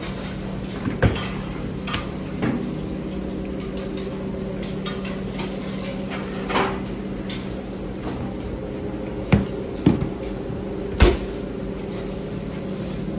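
Kitchen clatter: scattered knocks and clanks of pots, dishes and utensils, about seven in all, the loudest near the end, over a steady hum of kitchen machinery.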